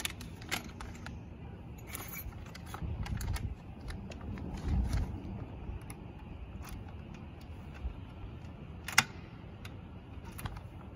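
Keys jangling and a key being worked into a glass shop door's lock, with scattered small clicks and one sharp click about nine seconds in as the lock is turned.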